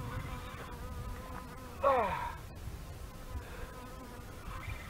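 A steady, faint buzzing hum runs throughout. About two seconds in, a man's voice gives one short sound that falls in pitch.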